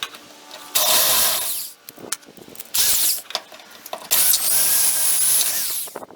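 Electric drill running in bursts, drilling into a rusted, stripped door hinge bolt. There is a short run about a second in, a brief one near three seconds, and a longer run from about four seconds with a steady high whine.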